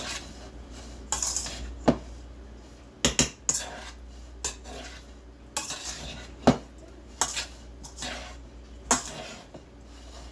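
Hands mixing crumbled cottage cheese curds in a metal mixing bowl, with irregular clinks and knocks against the bowl's metal side.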